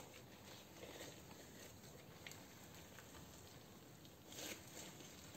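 Faint sticky crackling and soft clicks of pink slime being worked with glitter and pearls, with a sharp click a little over two seconds in and a louder crackle about four seconds in.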